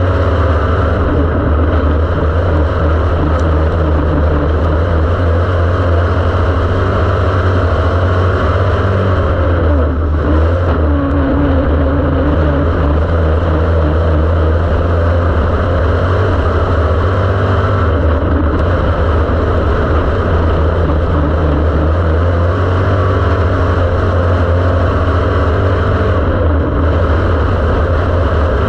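Dirt-track race car engine running hard at racing speed, heard from inside the car's cockpit. There is a brief dip in the sound about every eight seconds.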